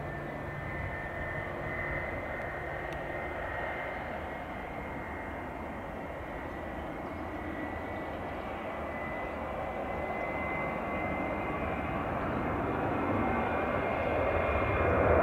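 Boeing 737's jet engines with a steady whine while the airliner taxis. The sound grows louder from about two-thirds of the way in and jumps near the end as thrust comes up for the take-off roll.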